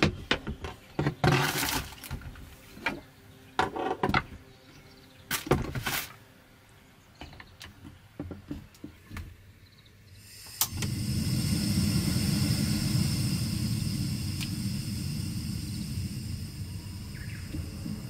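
Clicks and knocks of a hot sandwich maker being closed and handled. About ten and a half seconds in, a sharp click as a portable gas stove is lit, then the burner's steady flame, a low rumble with a hiss above it.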